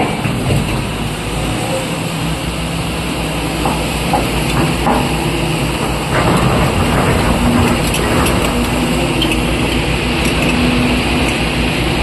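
Wheel loader's diesel engine running steadily as the machine drives across the quarry floor, with a few short knocks about four to five seconds in. The engine gets a little louder about six seconds in.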